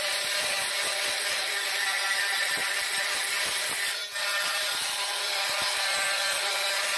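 Oscillating multi-tool with a diamond grout blade running steadily, its motor whine over a gritty rasp as the blade grinds old grout out of the joints between floor tiles, with a brief dip about four seconds in.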